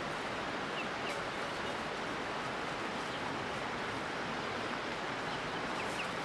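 Steady hiss of outdoor hillside ambience, with a few faint, brief high chirps scattered through it.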